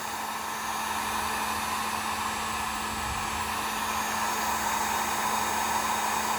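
Heat gun blowing steadily as it shrinks heat-shrink tubing onto a typewriter platen, an even rushing air sound with a low steady hum underneath.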